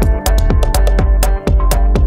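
Minimal techno played live from a DJ mixer: a steady deep bass with many crisp hi-hat-like ticks and layered synth tones over it.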